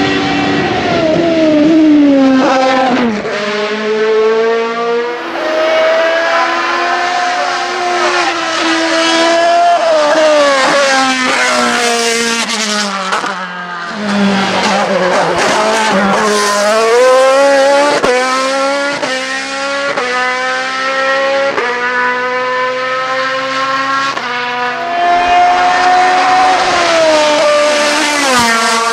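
Lola FA 99 formula race car engine at high revs under full acceleration. Its pitch climbs through each gear and drops sharply at quick upshifts. About halfway through, the revs fall away through downshifts for a corner, then climb hard again.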